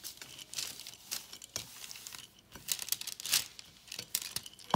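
Wooden rolling pin rolling out soft pie dough on a floured counter: irregular scraping, rustling strokes, with one sharp knock near the end.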